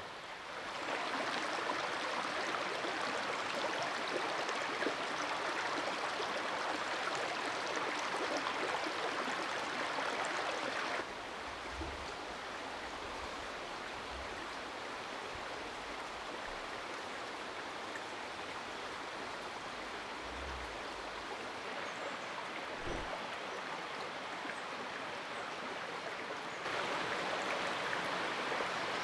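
Steady rushing of running water from a stream. It drops a step in level about eleven seconds in and comes back up near the end.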